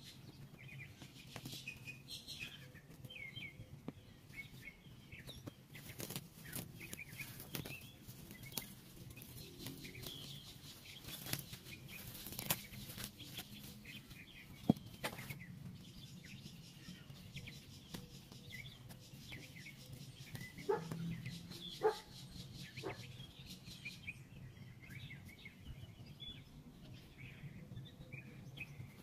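Small birds chirping faintly now and then, with rustling, scraping and a few sharp knocks close to the microphone from a gloved hand working in the soil and handling garden hand tools. A steady low hum runs underneath.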